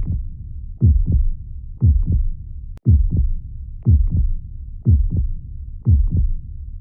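Heartbeat, a steady lub-dub of paired low thuds about once a second, with a low rumble between beats. A brief click and dropout comes a little under three seconds in.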